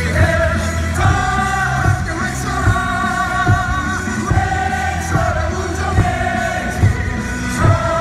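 Baseball stadium crowd singing a cheer song in unison over amplified music, with a steady drum beat a little under once a second.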